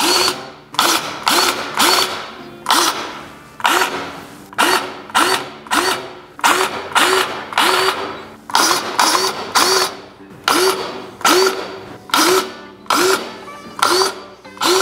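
Cordless grease gun pumping grease into the ATV's suspension grease fittings, its motor whirring in short repeated bursts, about three every two seconds, each rising quickly in pitch as it spins up.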